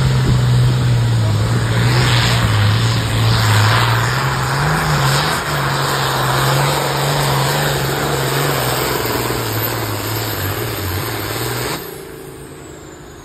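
New Holland TM120 tractor's diesel engine running hard under full load while pulling a weight-transfer sled: a loud, steady drone whose pitch wavers slightly. The sound drops off abruptly near the end.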